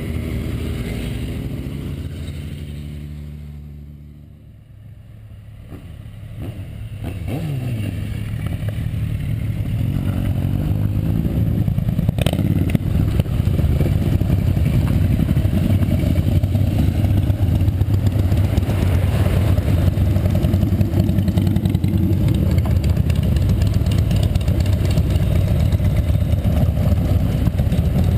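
A column of motorcycles, cruisers and sport bikes, riding past one after another, their engines running loud and steady. The engine sound fades about four seconds in, then builds again with a rising engine note and stays loud as more bikes go by.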